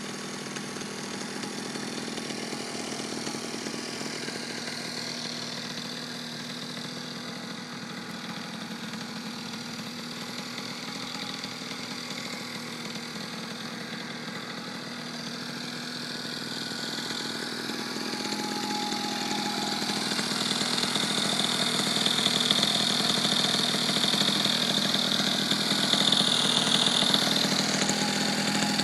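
Fichtel & Sachs two-stroke engine of a vintage Coleman mini bike running steadily, louder in the second half.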